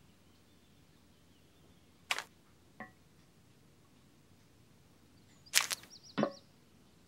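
A few sharp knocks or clacks, the loudest pair about five and a half and six seconds in, the last one ringing briefly, with a short wavering high squeak between them.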